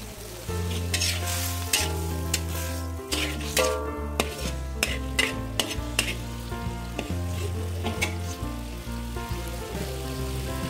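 Metal spatula stirring and scraping in a wok, with a dozen or so sharp clinks, over the sizzle of sliced angled luffa frying. A backing music track with a bass line plays underneath.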